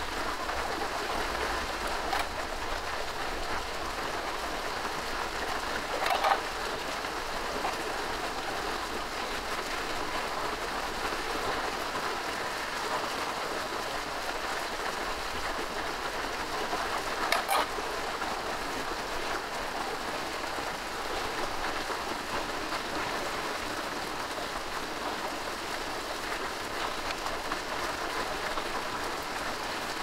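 Steady rain pattering on the surroundings, an even crackling hiss, with a couple of short knocks about six seconds in and again past the middle.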